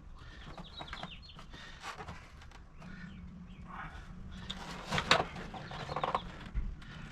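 Animal calls: several short pitched calls, the loudest about five seconds in, over a low steady hum.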